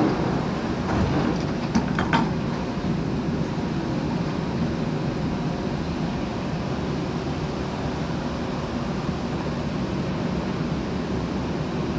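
Steady ventilation hum inside a stopped Bombardier C951 metro car with its doors open at the platform. A few knocks and footsteps come in the first two seconds as a passenger steps across the door threshold.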